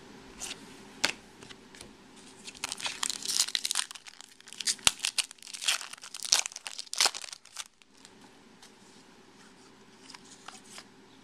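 Foil wrapper of a Topps Chrome trading-card pack crinkling and tearing as it is ripped open by hand, a dense run of crackles from about two to eight seconds in, then quieter handling of the cards.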